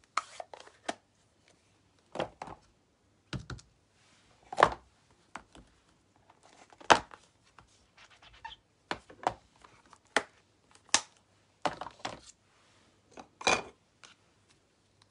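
Clicks and knocks of clear acrylic stamp blocks and a plastic ink pad case being handled and tapped while stamping, about a dozen irregular sharp strokes with short gaps between them.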